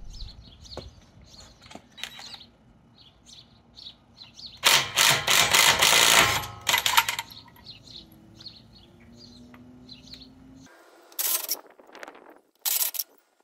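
Cordless impact wrench hammering a lug nut loose from a wheel in one burst of about a second and a half, followed by a few shorter bursts. Several more brief bursts come near the end as further lug nuts are spun off.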